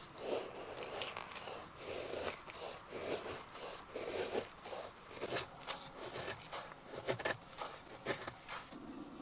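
Bushcraft knife carving a feather stick: a steady run of short shaving strokes, each pass of the blade peeling a thin curl off the wooden stick, about one stroke every half second to second.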